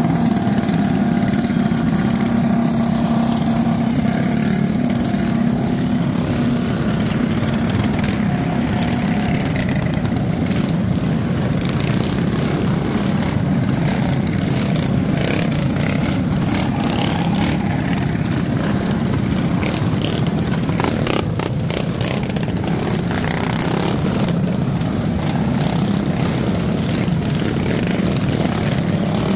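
Several gas mini-bike engines, small single-cylinder motors, running together in a pack at low speed with a steady drone.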